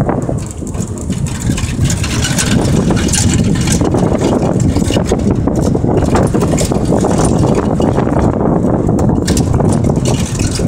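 Motor vehicle driving along a road: engine and road noise, a loud steady rumble.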